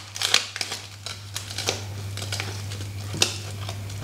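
Plastic tongs clicking against a plastic tray while a rice dumpling's leaf wrapper crinkles as it is peeled back and a piece is lifted, with one sharper click a little after three seconds in. A steady low hum runs underneath.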